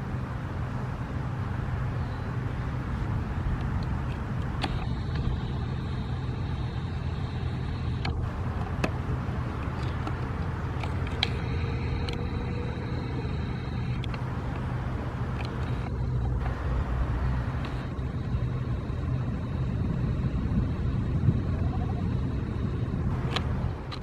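Steady low rumble of motor-vehicle traffic with a constant engine hum, and a few faint brief clicks now and then.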